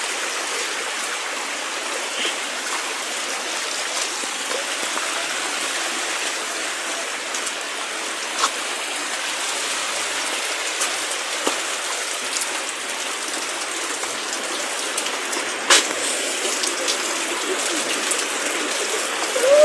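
Steady hiss of rain and running floodwater, with a few faint clicks scattered through it.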